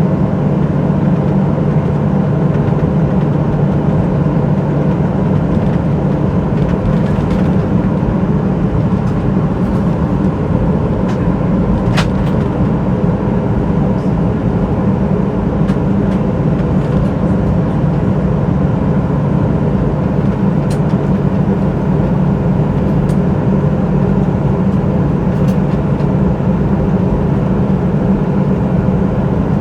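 Steady cabin drone inside a Boeing 737-800, from its jet engines and air system, with a few faint clicks, the clearest about twelve seconds in.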